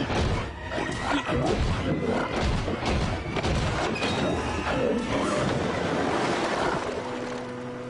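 Music with many short knocks and clatters over it; near the end, a few steady tones take over.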